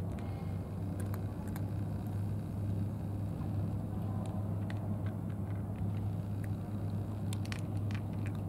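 A steady low outdoor rumble, with scattered faint clicks and ticks, more of them near the end.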